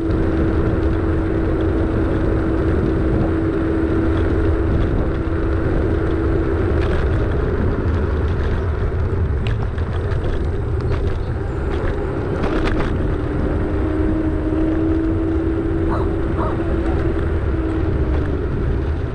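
Car driving at low speed, with a steady low rumble of road and engine noise. A steady hum drops out for several seconds in the middle and then returns, and a few light clicks come in the middle.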